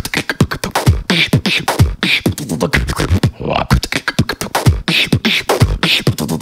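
Solo beatboxing: a fast rhythm of vocal kick drums that drop sharply in pitch, crisp snares and hi-hat clicks, with bass sweeps, all made with the mouth.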